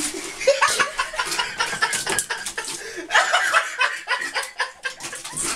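People laughing and chuckling off camera in short, repeated spells, with a little speech mixed in.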